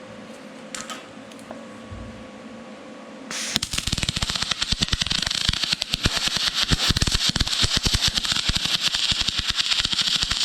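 MIG welding arc from a spool gun feeding 4043 aluminum wire on thin aluminum strips, striking up about a third of the way in and then running as a steady, dense, fast crackle. Before the arc starts there is only a faint steady machine hum with a few light clicks.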